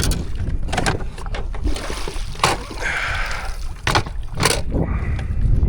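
Wind rumbling on the microphone in a small fishing boat, with several sharp knocks against the boat and a short splash-like hiss about three seconds in.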